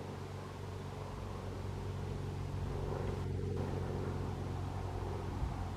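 An engine running steadily, a low hum that holds its pitch throughout.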